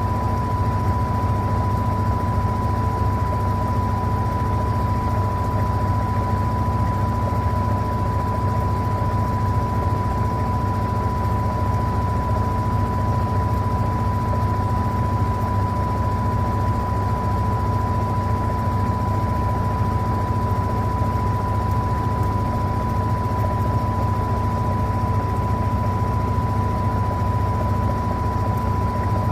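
Electrolux LTA15 washing machine running steadily: a constant low hum with a steady high whine over it.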